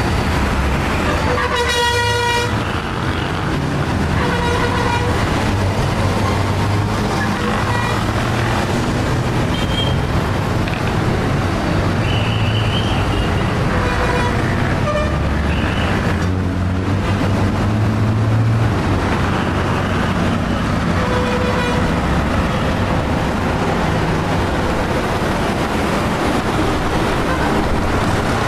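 Busy street traffic: vehicle engines running steadily, with car horns honking several times, the loudest a short blast about two seconds in and fainter toots later.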